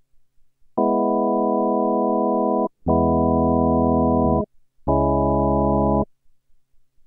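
STM32-based clonewheel organ synth (algorithmic tonewheel emulation) playing three held notes with only the 16', 5 1/3' and 8' drawbars pulled, a dark, less bright organ tone. Each note starts and stops abruptly with no decay, the second and third reaching lower.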